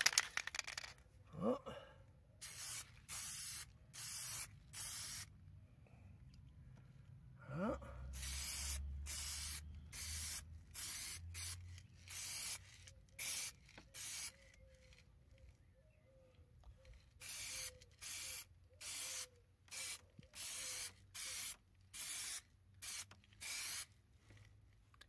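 Aerosol can of white primer undercoat spraying in a series of short hissing bursts, mostly under a second each, in groups with short pauses. The primer is going on as a first coat over sanded filler.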